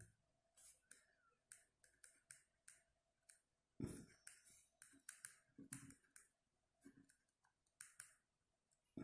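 Near silence broken by faint clicks and scratches of a pen writing on paper on a clipboard, coming more often from about four seconds in.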